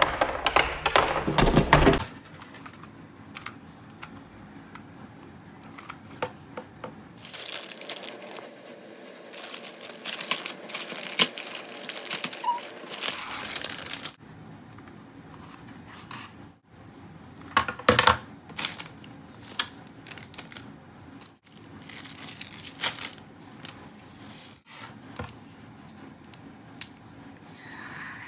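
Packaging being torn and opened by hand: plastic and paper rustling and tearing, with scattered clicks and knocks of parts being handled. A denser stretch of tearing and rustling comes near the middle.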